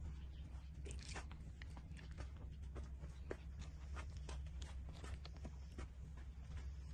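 Nursing puppies, about 18 days old, suckling at the mother dog: a run of irregular short wet smacking clicks, several a second, over a steady low hum.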